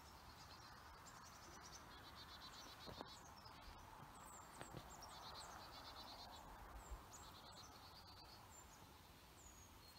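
Faint calls of small woodland birds: scattered high, thin notes that slide downward and short runs of rapid repeated notes, over a quiet steady hiss.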